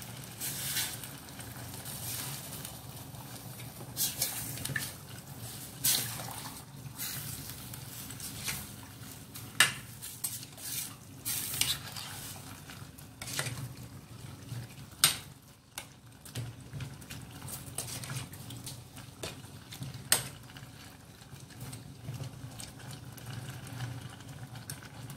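Metal spoon stirring bamboo shoots in coconut-milk gravy in a stainless steel saucepan, clinking and scraping against the pot at irregular intervals over a low steady hum.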